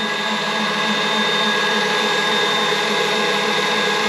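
Electric kitchen robot running steadily, its motor giving a constant hum with a few steady tones over an even whirr.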